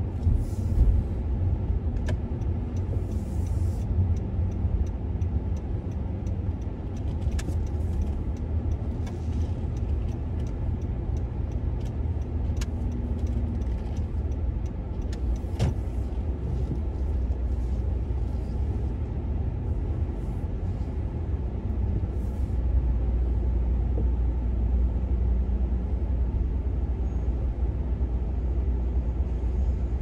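Car driving slowly, heard from inside the cabin: a steady low rumble of engine and tyres, with a few faint clicks and knocks.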